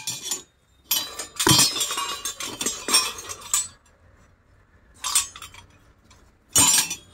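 Hard plumbing fittings clinking and rattling against each other as they are handled and packed. There are three bursts: a long clatter starting about a second in, then two short ones near the end.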